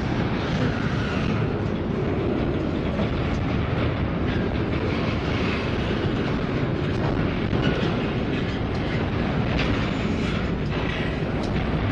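Four-unit lash-up of Union Pacific diesel-electric locomotives running with a steady, heavy engine rumble, broken by a few sharp metallic clanks.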